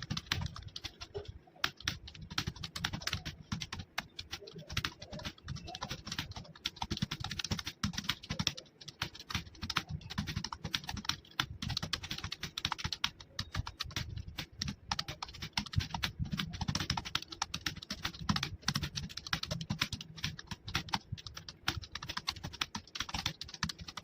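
Fast, continuous typing on a computer keyboard: a rapid, irregular stream of key clicks.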